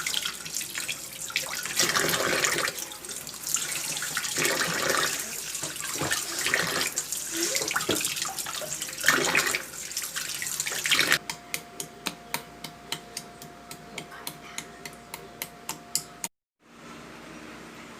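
Tap water running into a sink, splashing unevenly as things are handled under it. About eleven seconds in it cuts off abruptly to a faint steady hum with regular ticks, about three a second.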